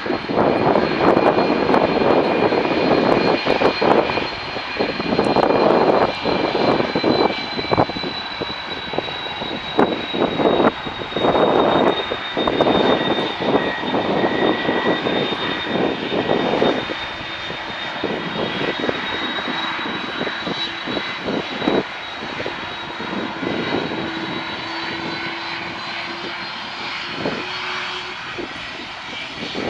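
Airbus A330-200 departing, its General Electric CF6-80E1 turbofans giving a loud rushing roar with a steady high whine. The roar surges in uneven gusts through the first half, then eases to a lower, smoother level.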